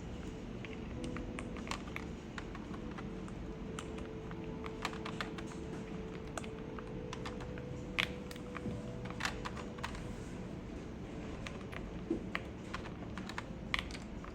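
Irregular plastic clicks and taps from a mechanical keyboard with SW x Keygeek Tori switches and Candy Box keycaps, a few a second and uneven, as keys and keycaps are pressed by hand, over a faint steady hum.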